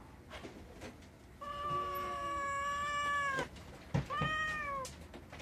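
Domestic cat meowing: one long, drawn-out meow held at a steady pitch for about two seconds, then a sharp click and a shorter meow that falls slightly in pitch.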